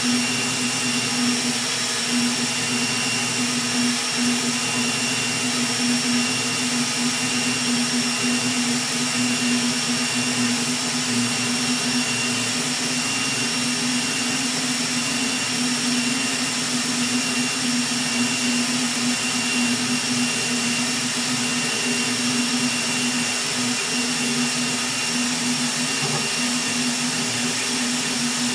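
Rat Rig V-Core 3 400 3D printer running a fast print: a steady whir with a constant whine, from its Delta PFB0412EN-E part-cooling blower fans at 80% speed and the motors driving the toolhead.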